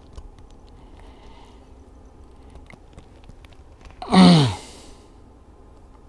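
A man's short groan, falling in pitch, about four seconds in, while he strains to work a fuel line onto its fitting. Around it are faint small clicks and rustles of his hands handling the hose and crimp connector.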